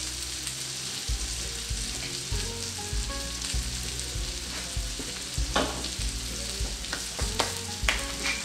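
Steady kitchen hiss, with a few light clicks and taps of utensils from about five and a half seconds in, as salt is spooned from a wooden salt box into a mixing bowl.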